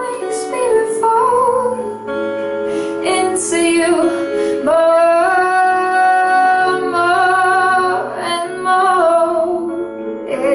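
A woman singing a slow song with long, wavering held notes, accompanied by an acoustic guitar and a keyboard.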